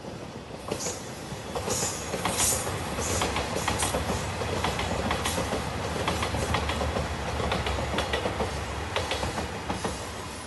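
JR 2700 series diesel express train passing close by, its wheels clattering over rail joints over a low engine rumble. The sound builds about a second in and stays loud as the cars go by.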